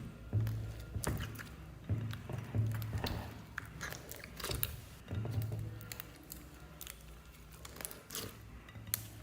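Slime being squeezed and worked by hand, giving many short crackling clicks and pops, over background music.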